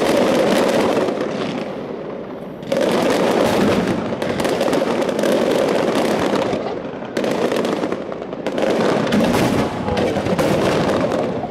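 Fireworks display: dense, rapid crackling of aerial shells bursting, in several loud volleys that start suddenly, one at the very beginning, one about two and a half seconds in and more around seven and eight and a half seconds in.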